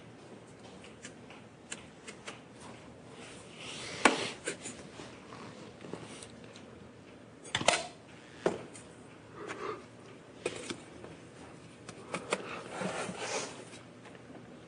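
Scattered sharp clicks and knocks with short stretches of rustling. The loudest click comes about four seconds in, with another strong one near eight seconds.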